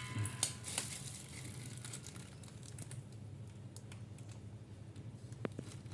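A steady low machine hum, with a short rattling clatter of handling in the first second and two light ticks near the end.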